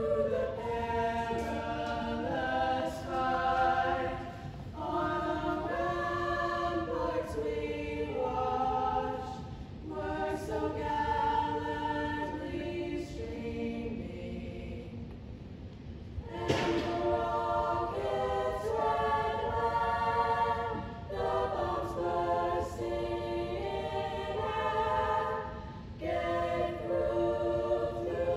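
Choir of female voices singing unaccompanied in sustained chords, in phrases of about five seconds with brief breaks between them.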